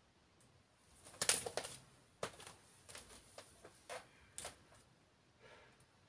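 Faint light clicks and taps from a person moving through a standing leg stretch. There is a quick cluster about a second in, then single clicks roughly every half second.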